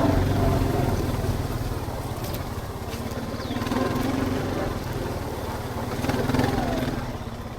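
Four-wheeler (ATV) engine running steadily at low revs, with small rises and falls in speed.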